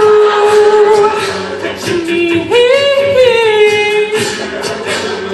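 Male a cappella group singing: a lead voice holds long notes and slides between them over backing voices. Vocal percussion keeps a beat underneath.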